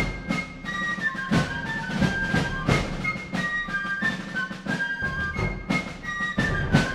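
Fife and drum corps music: fifes playing a lively melody over regular drum strokes.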